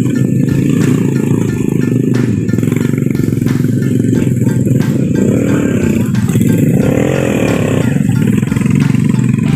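Motorcycle engine labouring under a heavy load on a steep climb, its pitch rising and falling a few times past the middle.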